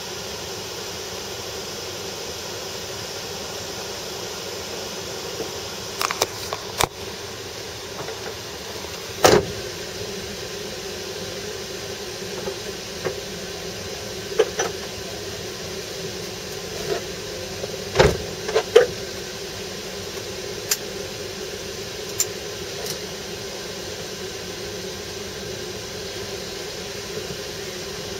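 Mazda Demio dirt-trial car's engine idling steadily, heard inside the stripped, roll-caged cabin while the car sits stationary. A few short clicks and knocks break in, the loudest about nine seconds in and twice around eighteen seconds in.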